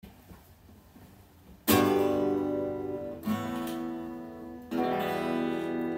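Acoustic guitar: three chords strummed about a second and a half apart, starting about a second and a half in, each left to ring and fade.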